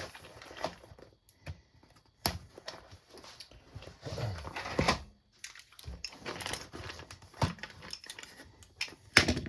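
A tool kit's box and packaging being opened and handled: irregular clicks, rustles and knocks, with a few louder thumps, the loudest just before the end.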